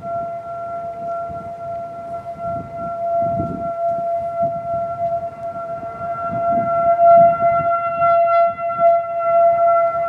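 Federal Signal 2001-SRN rotating siren sounding its steady alert tone of about 680 Hz. The tone swells louder about seven seconds in as the slowly rotating horn turns toward the listener.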